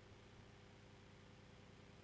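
Near silence: a faint, steady background hiss from the recording's noise floor.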